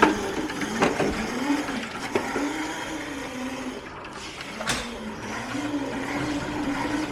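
Electric motor of a Razor Crazy Cart drift kart whining as it is driven, its pitch rising and falling with speed, with a couple of short knocks, about a second in and near five seconds.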